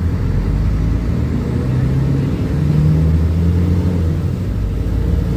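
Mercedes-Benz O500UA super-articulated bus's diesel engine running, a low drone whose pitch climbs a little in the middle and then settles back.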